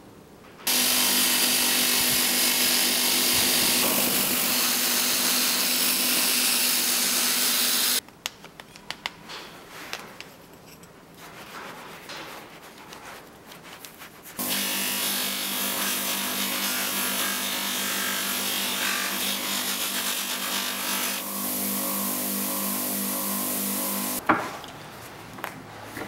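Bench-mounted wire brush wheel running, its motor humming steadily while an old steel bicycle pedal is pressed against the spinning wire to scrub off rust and grime. The scratchy brushing comes in two long stretches of about seven and ten seconds, each starting and stopping abruptly, with a few seconds of quieter clicks and handling between them and a sharp knock near the end.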